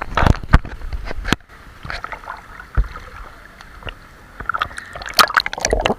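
Swimming-pool water splashing and sloshing in irregular bursts, a cluster in the first second or so and another in the last couple of seconds.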